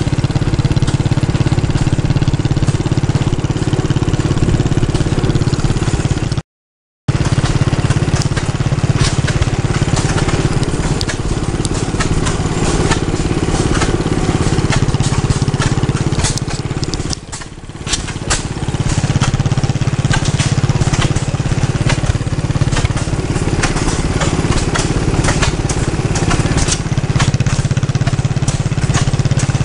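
Engines running steadily, a low steady drone with crackling clatter over it; the sound cuts out completely for about half a second some six seconds in and dips briefly near the middle.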